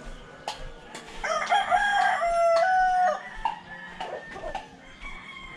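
A rooster crowing once: one long call of about two seconds, starting about a second in.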